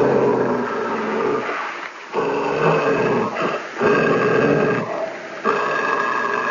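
A canine growling in long drawn-out bouts, about four of them with short breaks between.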